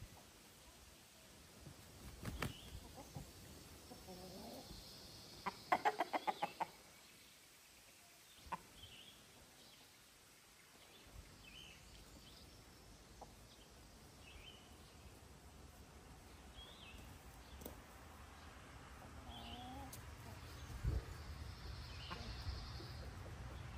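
Rhode Island Red chickens clucking as they forage, with a quick run of about eight clucks around six seconds in. Short high chirps are scattered throughout.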